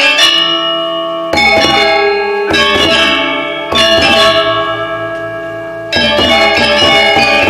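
Balinese gamelan of bronze metallophones and gongs playing a tabuh kreasi: loud unison strikes, each left to ring and fade, with a low gong tone pulsing as it dies away, then fast struck figures near the end.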